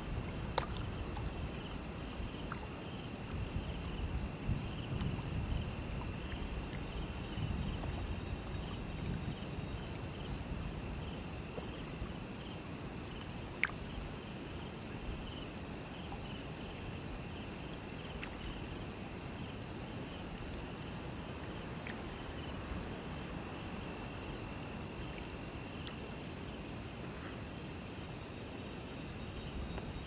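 Night chorus of crickets: a steady high trill with a second, pulsing insect call beneath it, over a low steady rumble that is stronger in the first ten seconds. A couple of sharp clicks stand out, one just after the start and one about fourteen seconds in.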